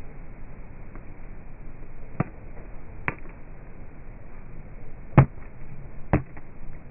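A pickleball paddle striking the plastic ball in a dinking exchange: four sharp pops, the third the loudest, over a steady outdoor hiss.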